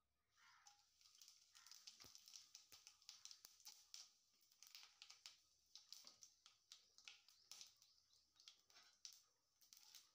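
Cumin seeds, dried red chillies and a bay leaf crackling and sizzling in hot oil, with many small pops, starting just after the spices go in. This is the tempering (tadka) stage of the curry.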